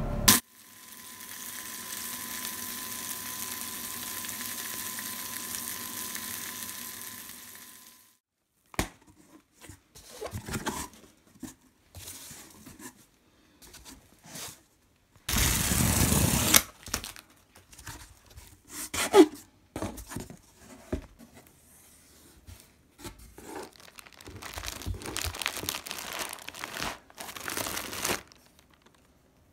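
Packing tape being torn off a cardboard box, then plastic wrapping rustling and crinkling as the parcel's contents are handled. The loudest tearing comes about halfway through. The first eight seconds hold a steady hiss from an unseen source.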